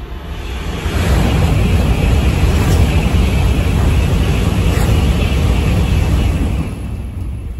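N700S Shinkansen high-speed train passing at speed: a loud rushing noise of wheels and air that swells within the first second, holds steady for several seconds, and eases off near the end as the last cars go by.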